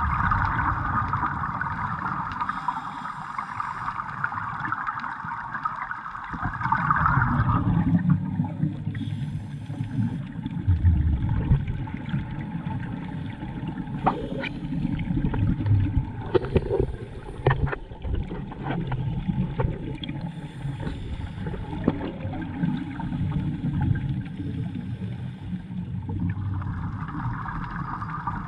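Underwater scuba sound: a regulator's exhaust bubbles gurgling during the first few seconds and again near the end, with a low churning water rush and a few sharp clicks in between.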